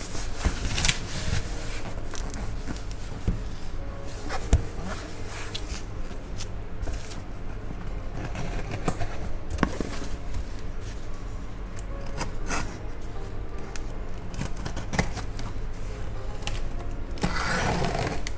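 Cardboard shipping box being handled on a table: scattered light knocks and scrapes of the cardboard. Near the end a craft knife slits the packing tape along the box's seam with a rough scraping sound.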